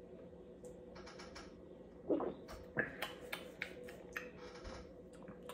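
Small clicks and taps from drinking out of an aluminium drink can and handling it, starting about a second in, with a couple of louder ones around two and three seconds in.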